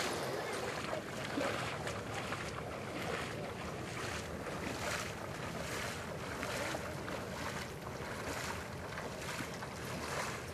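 Wind buffeting the microphone over a steady splashing of water, from hunters wading knee-deep through a shallow flooded pond, with uneven swishes every half second or so.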